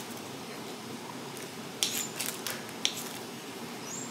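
Kitchen knife cutting grapes on a wooden cutting board: about four short taps of the blade against the board between two and three seconds in, over faint room noise.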